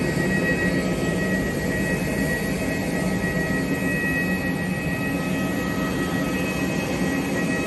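Jet airliner noise: a steady rumbling hum with a thin, constant high-pitched whine over it.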